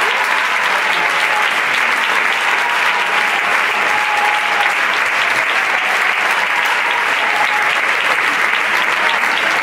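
Large audience applauding: a steady, dense round of clapping.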